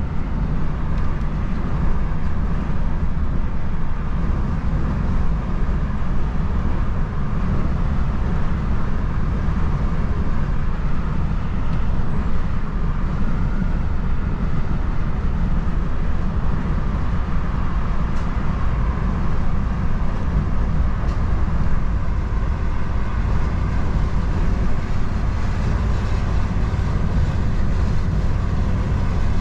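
Heavy truck driving at a steady speed: a continuous low engine rumble mixed with road and tyre noise, unchanging throughout.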